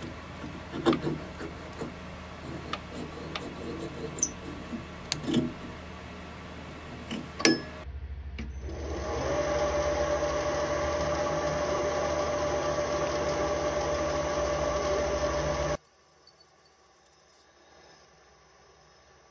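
Sharp metallic clicks and knocks as metal parts are handled on a metal lathe. About eight seconds in, the lathe starts: its motor and gearing run up to speed with a whining tone, then run steadily. The sound cuts off suddenly about three-quarters of the way through.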